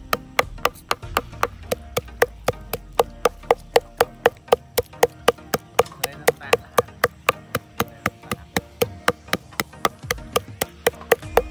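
Long kitchen knife chopping meat on a round wooden chopping block, mincing it with steady, rapid chops, about four a second.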